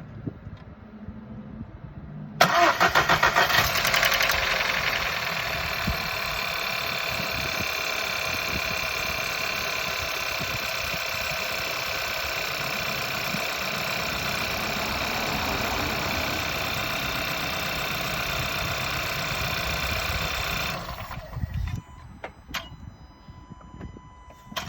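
VW-group 1.2 TSI four-cylinder turbo petrol engine starting about two seconds in with a loud rattling clatter for the first second or two, then idling steadily until it is switched off near the end, followed by a few clicks.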